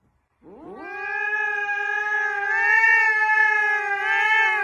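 A cat's long, drawn-out meow: it rises in pitch about half a second in, then holds one steady note with a slight wobble near the end.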